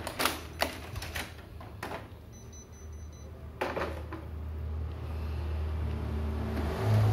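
Plastic clicks and knocks as the drum and developer units are slid out of a Kyocera M2040dn copier and handled, about five sharp knocks in the first four seconds, over a steady low hum, with rustling handling noise growing near the end.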